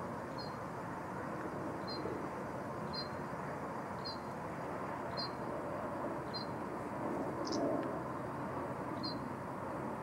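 A small bird's short, high call notes, repeated about once a second, eight times, over a steady low background rumble.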